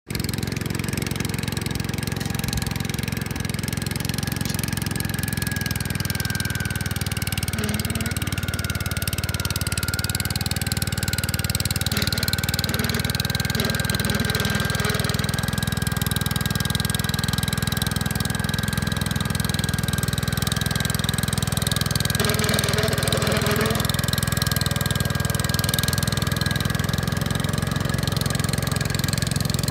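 Gravely 5665 tractor engine running steadily, with a thin steady whine over the low engine hum.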